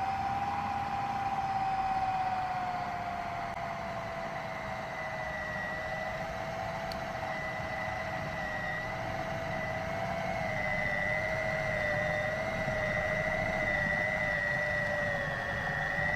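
Electric food processor running continuously, its blade mixing a bowl of flour mixture: a steady motor whine that sags slightly in pitch over the first few seconds, then holds.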